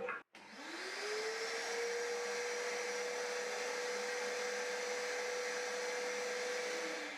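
Kärcher WD3 1000-watt wet and dry vacuum cleaner switched on, its motor whine rising to a steady pitch within about a second. It runs steadily, then is switched off near the end, the pitch falling as the motor winds down.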